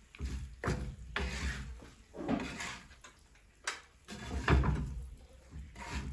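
Cooking clatter: a metal pan and serving utensils knocked and scraped in about six short, irregular bursts as pasta is put into the pan with the meat.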